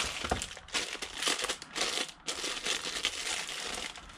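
Clear plastic bag crinkling as the multimeter's test leads are handled inside it.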